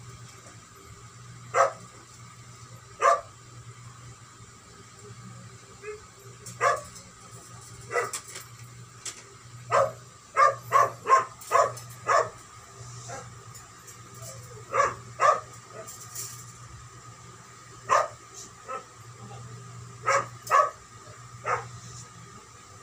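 A dog barking: short single barks spaced a second or more apart, with a quick run of five or six barks about ten seconds in. A faint steady hum lies underneath.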